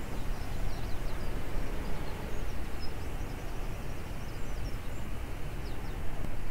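Dawn chorus of birds: many short, high chirps and trills, faint against a steady rushing background noise.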